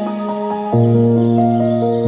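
Background music of steady held chords, a deep bass note coming in just under a second in, with small birds chirping over it: a quick run of high chirps, each a little lower than the last, from about a second in.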